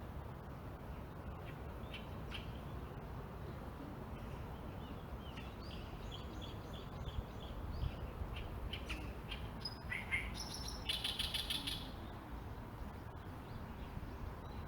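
Small songbirds chirping and singing in scattered short notes, with a quick run of repeated notes midway and a louder rapid trill about ten to twelve seconds in, over a steady low rumble.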